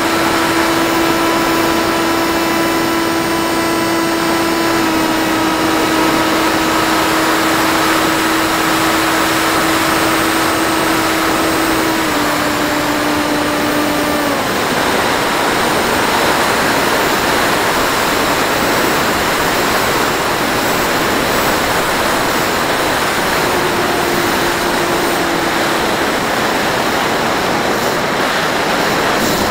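Electric motor and propeller of a small FPV flying wing, heard from its onboard camera: a steady whine over heavy wind rush. The whine drops in pitch twice, fades out about halfway through and leaves only the wind. It comes back briefly near the three-quarter mark.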